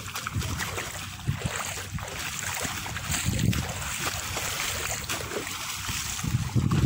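Wind buffeting the phone's microphone in uneven low gusts, over a steady hiss of shallow sea water.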